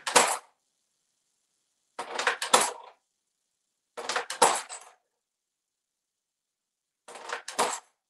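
Coins clattering onto a hard countertop as an African grey parrot picks them up with its beak and drops them, in four short bursts about two seconds apart.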